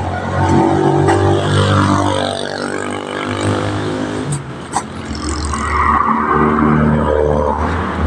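Motorcycle engine running close by, its pitch shifting a few times.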